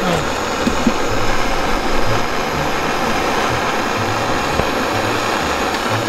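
Handheld gas torch burning with a steady hiss, its flame held on a 9 mm steel rod to heat it for bending.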